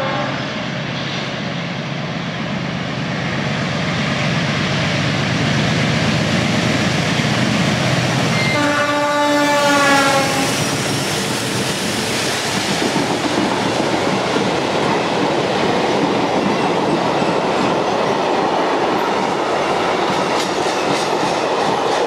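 MLW MX diesel locomotive approaching with its engine rumbling, then sounding its horn for about two seconds as it passes, the pitch dropping as it goes by. Freight wagons follow, rolling past with a steady rumble and clickety-clack of wheels over rail joints.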